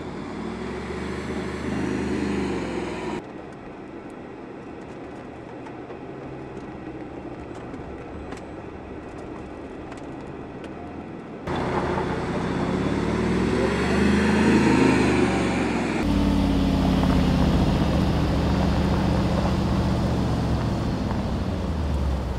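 Mercedes-Benz G-Class engine revving and easing off while the SUV climbs and descends steep dirt slopes, its pitch rising and falling. It drops back for several seconds with faint crackling, then comes in louder again about halfway through and settles into a steady drone near the end.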